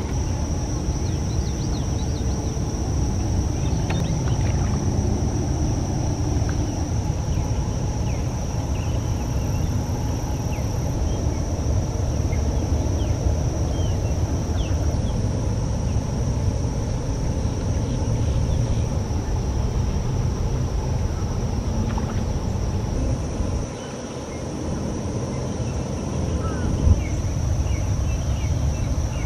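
Steady low rumbling background noise with a thin, steady high-pitched hum above it; the rumble dips briefly near the end, and one knock sounds shortly after.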